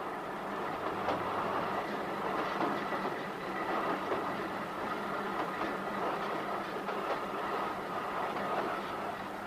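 A train running on rails: a steady rattle and rumble of carriages with the clickety-clack of wheels.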